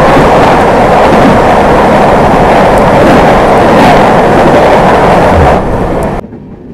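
Loud rushing roar of another passenger train's coaches passing at speed on the adjacent track, heard from the side of a moving train. It stops suddenly about six seconds in as the last coach clears.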